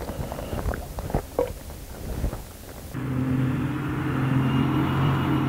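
Footsteps crunching on packed snow for about three seconds, then an abrupt change to a steady low mechanical hum.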